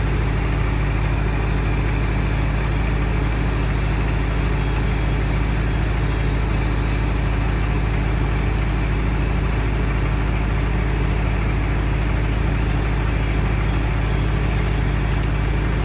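Steady idling drone of an engine-driven welding machine, holding an even pitch throughout, with a constant high hiss over it while a TIG arc runs on the steel pipe's root pass.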